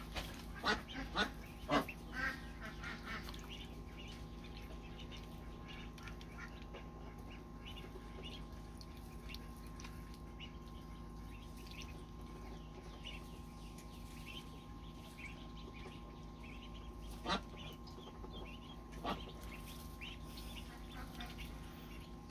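Ducklings peeping faintly and steadily, with a few louder duck calls in the first two seconds and two more near the end, over a steady low hum.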